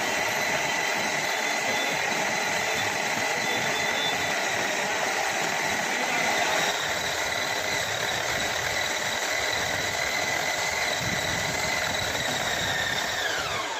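Preethi Zodiac 750-watt mixer grinder running at full speed with a steady high whine. Near the end it is switched off and the whine falls in pitch as the motor spins down.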